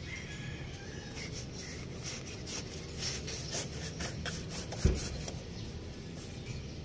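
Hands rubbing and working a metal pipe and its hose clamps: a run of quick scraping rubs, with a single knock about five seconds in.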